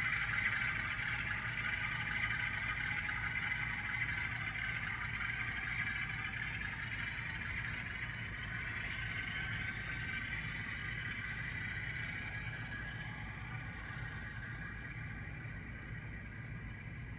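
Model-railroad freight cars rolling past on the track: a steady whir of metal wheels on rail that slowly fades as the train moves away.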